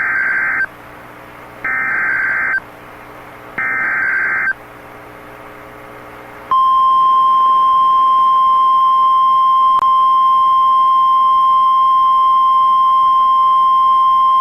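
NOAA Weather Radio Emergency Alert System signalling: three SAME header data bursts, each a harsh warbling screech about a second long and a second apart. About two seconds after the last burst, the steady 1050 Hz weather-radio warning alarm tone begins and holds. Together they mark the activation of a severe thunderstorm warning.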